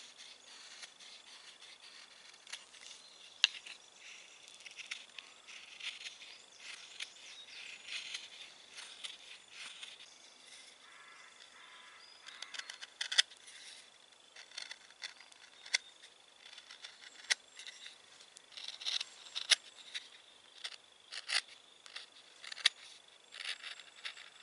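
Knife blade shaving and scraping wood by hand, a string of short scrapes and sharp clicks, as the mouth of a one-piece wooden knife sheath is carved out.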